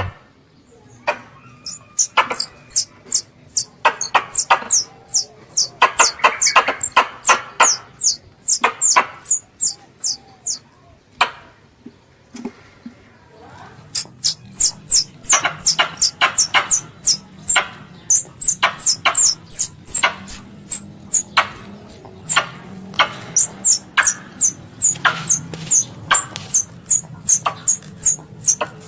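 Squirrel lure call: a rapid chattering series of sharp calls, several a second, each a click with a short falling high note. It runs in two long bouts with a pause of a few seconds around the middle.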